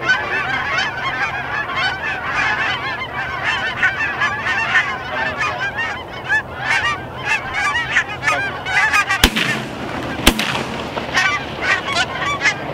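A large flock of Canada geese honking continuously as they lift off and fly overhead. Two shotgun shots about a second apart ring out about two-thirds of the way through.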